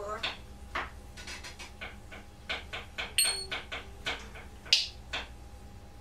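African grey parrot making an irregular series of sharp clicks and short pops, about two or three a second, with a brief whistle-like note about three seconds in.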